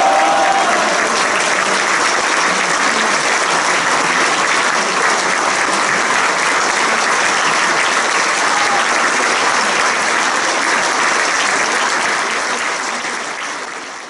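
Large audience applauding, a dense, steady clapping that fades out near the end.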